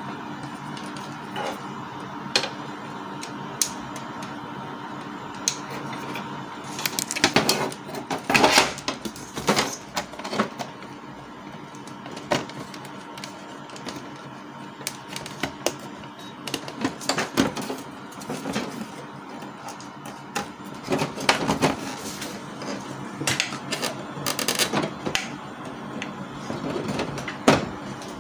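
Scattered clicks, taps and knocks of plastic printer parts being handled: the opened casing and side panel of a Canon G1010 inkjet printer as its waste-ink hose is worked out. The clicks come in clusters, busiest about seven to ten seconds in and again in the last third, over a steady background tone.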